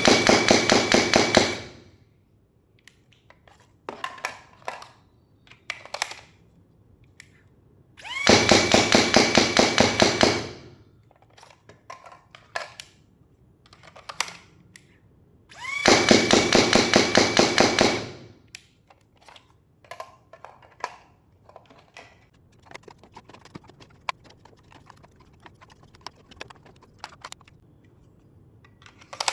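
AIT Lightning electric foam dart blaster firing full-auto bursts, each about two seconds of rapid shots with a rising motor whine at the start, roughly every eight seconds. Magazines, ten darts each, are swapped between the bursts with clicks and rattles.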